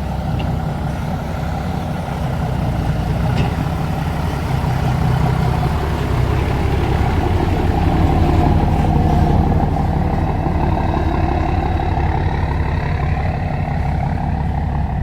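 Mitsubishi Fuso Fighter dump truck's 6M60 turbo-diesel straight-six running and pulling away. The engine note rises to its loudest about eight to nine seconds in, then eases.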